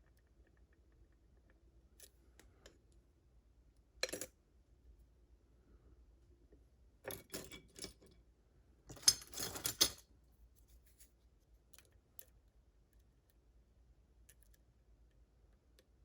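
Metal clicking and scraping of a lock pick and tension tool working the pins of a Ruko 600 lock: a short burst about four seconds in, a few clicks around seven seconds, and the loudest, densest run of clicks and scraping at about nine to ten seconds.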